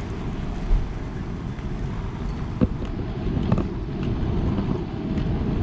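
Steady low rumble of wind and handling noise on a handheld microphone carried at walking pace, with a few light knocks, the sharpest about two and a half seconds in.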